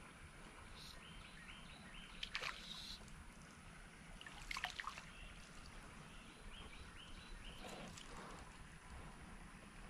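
Quiet creek ambience around a kayak, with light water sounds and two short splashes, one about two and a half seconds in and one about four and a half seconds in.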